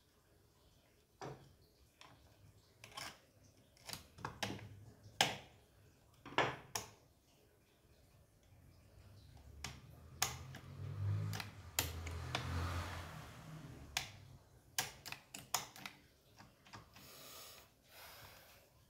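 Irregular clicks and knocks of small plastic and metal parts being handled and snapped into place on a Stihl MS210 chainsaw during assembly, with a stretch of rustling and scraping about halfway through.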